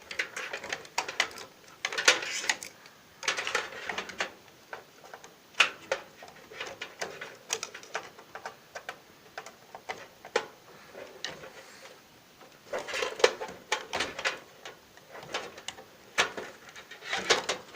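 Irregular small clicks, taps and handling rustle as a RAM stick is fitted into a motherboard's memory slot and pressed home.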